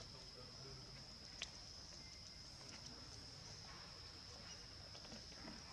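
Faint, steady high-pitched insect drone, with one sharp click about a second and a half in and a few faint ticks.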